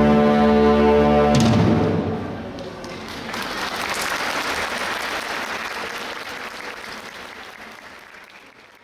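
A school wind band holds its final chord and cuts it off about a second and a half in. Audience applause follows and fades away near the end.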